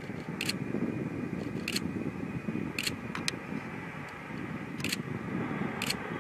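Boeing C-17 Globemaster III's four turbofan engines during a landing roll on a dirt strip, a steady deep rushing noise as reverse thrust blows dust forward. Camera shutters click sharply over it about six times.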